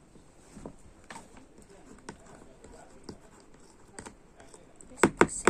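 Scattered soft clicks and pops of hands working homemade slime, with a few louder sharp clicks near the end.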